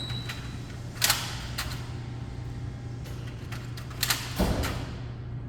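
Soda cans being loaded into a vending machine's rack: two sharp metallic clunks, about a second in and about four seconds in, the second followed by a heavier thud and clatter, over a steady low hum.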